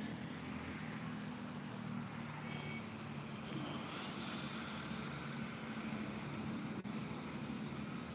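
A steady low motor hum running on over background noise, with a single faint click near the end.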